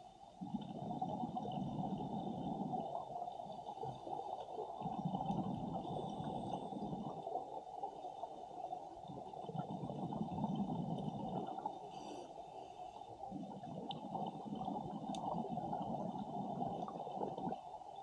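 Scuba diver's breathing heard underwater: exhaled bubbles gurgling out of the regulator in about four long bursts a few seconds apart, with a steady faint high hum behind.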